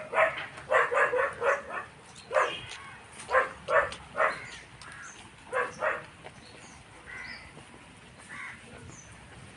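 Crows cawing: a run of short, harsh caws, some in quick pairs, for the first six seconds or so. A few faint high chirps from smaller birds follow.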